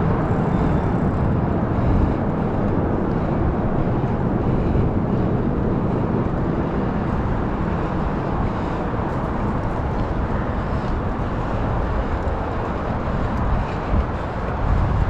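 Steady low rumble of a bicycle ride: 29 x 2.8 inch tyres rolling on pavement, mixed with wind on the microphone.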